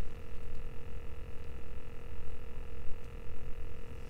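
Steady electric motor whine at a constant pitch, typical of a kayak trolling motor running at a fixed speed while dragging baits, over a low uneven rumble.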